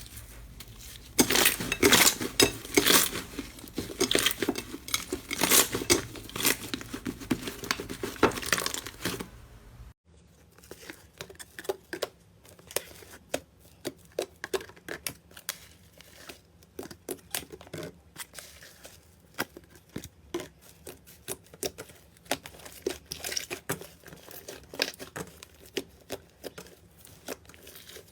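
Slime being squeezed, stretched and pressed by hand, a dense run of crackling clicks and pops. About ten seconds in it cuts to a quieter stretch of softer, finer clicking.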